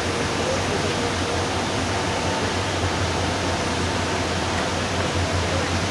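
Steady rushing roar of a large waterfall, the four-tiered Dudhsagar Falls, with a steady low hum beneath it.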